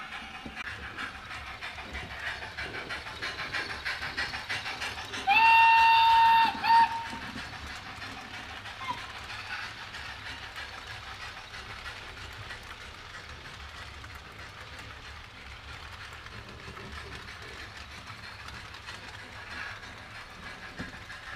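Model Gr.685 steam locomotive's DCC sound decoder playing rhythmic exhaust chuffs, then, about five seconds in, a loud steam whistle blast of about a second and a half followed by a short toot. The model train keeps rolling along the track with a steady running noise afterwards.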